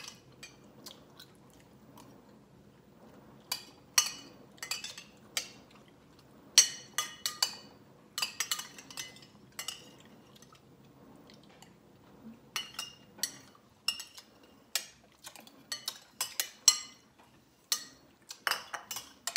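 Metal spoon clinking and scraping against a ceramic bowl in irregular clusters of sharp clicks, some with a brief ringing tone, with chewing between them.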